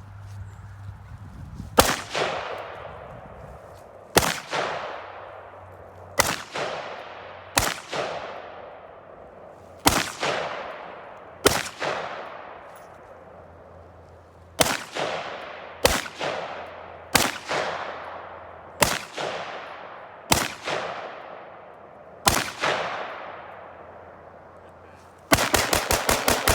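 DPMS AR-15 rifle firing about a dozen single shots, one every second or two, each trailing off in a long echo. Near the end a rapid string of shots at about ten a second begins.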